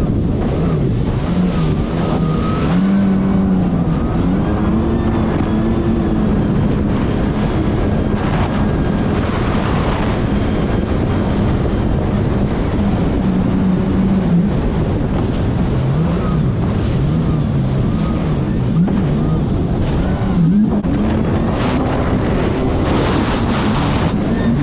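Kawasaki Ultra 310 LX-S jet ski's supercharged four-cylinder engine running hard under throttle, its pitch wavering up and down as the rider works the throttle, with wind buffeting the microphone.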